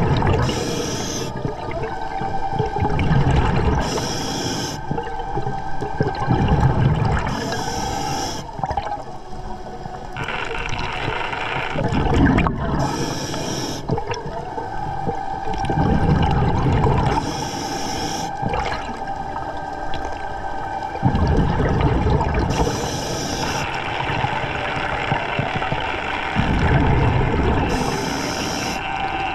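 Scuba diver breathing through an Atomic regulator underwater: a short hiss of inhalation followed by a longer low rumble of exhaled bubbles, about seven breaths, one every four to five seconds. A steady whine runs underneath.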